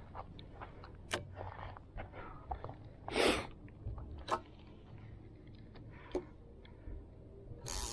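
Handling noise from a spinning rod and reel: scattered small clicks and knocks, with a short loud rushing burst about three seconds in and another near the end, over a low rumble.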